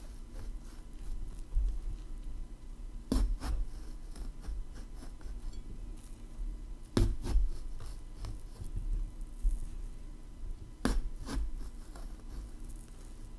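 Chef's knife cutting slits into a whole raw eggplant, with faint rubbing and three pairs of sharp knocks a few seconds apart.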